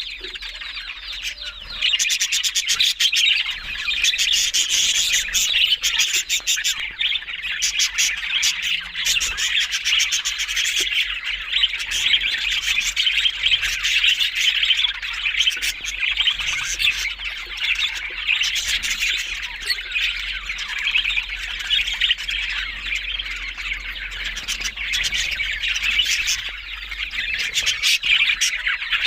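Several budgerigars chirping and chattering without a break, with squawks mixed in.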